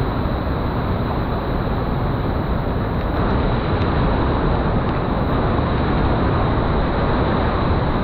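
Loud, steady rush of a waterfall, Belligundi (Kudumari) Falls, pouring in a single drop.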